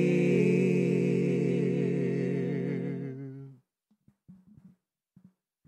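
Three-voice gospel trio holding the last sung chord of a worship song, the voices wavering with vibrato, fading out about three and a half seconds in. A few faint soft sounds follow.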